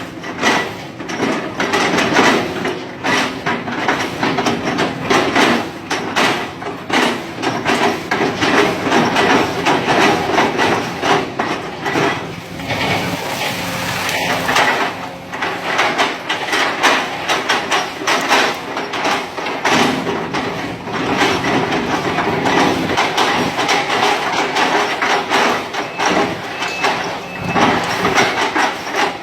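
Sumitomo SH130 hydraulic excavator at work, its diesel engine running steadily under load with frequent irregular clanks and knocks as it chips oil palm trunks.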